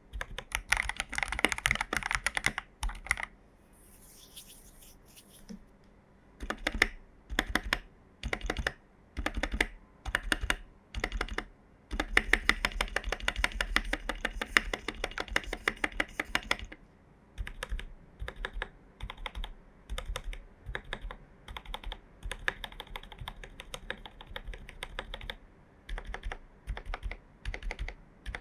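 Typing on an AKKO 5075B mechanical keyboard with lubed Jelly Black linear switches. Fast runs of keystrokes are broken by a pause of about three seconds near the start and a few short bursts, then the typing settles into a steady rhythm.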